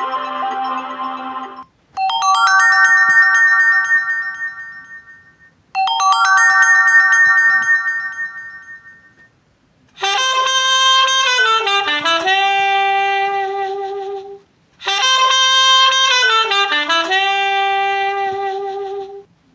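Preset phone tones from the Honor 7A's EMUI software played through in turn: a short bright jingle of quick notes settling into a held, fading chord, heard twice, then a longer melodic tone with notes sliding downward, also heard twice. A previous tone is ending in the first second or two.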